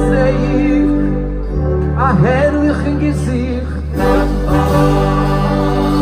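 Live band music with singing: keyboard and bass hold low chords for a second or more at a time under a wavering melody line.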